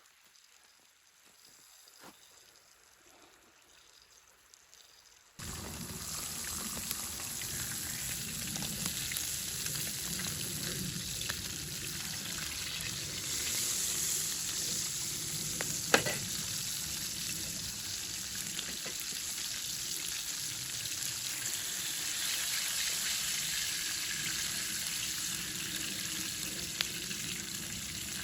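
A steady sizzling hiss that starts suddenly about five seconds in after near quiet and cuts off abruptly at the end, with one sharp click about two thirds of the way through.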